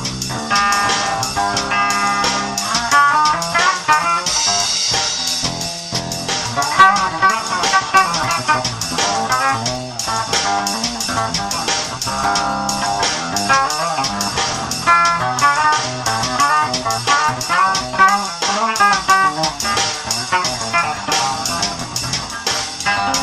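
Dean Rhapsody 8-string bass guitar played in quick melodic runs of high, guitar-like notes over a drum loop with a steady beat.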